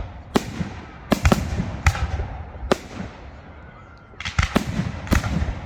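Fireworks bursting overhead in a series of sharp bangs with rumbling echoes: a run of bangs in the first three seconds, a short lull, then another cluster from about four seconds in.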